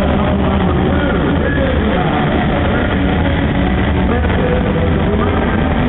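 Square-dance music mixed with the steady running of several tractor engines.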